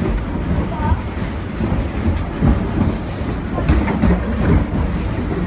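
Passenger train rolling along the track, heard from aboard a car: a steady low rumble with occasional knocks from the wheels.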